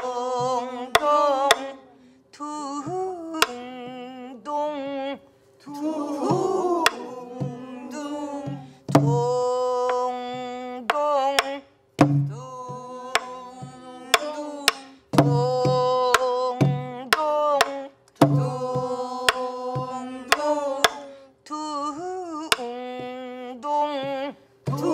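Pansori singing: a voice with wide, wavering vibrato in drawn-out phrases, marked by sharp stick strokes on buk barrel drums.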